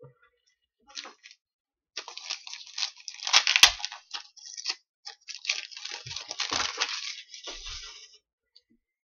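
Foil wrapper of a 2012-13 SP Authentic hockey card pack being torn open and crinkled by hand. A run of crackling starts about two seconds in and lasts to near the end, loudest with a sharp rip about three and a half seconds in.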